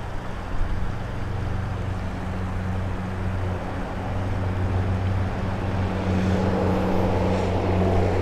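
A steady low engine hum that holds one pitch and grows slowly louder.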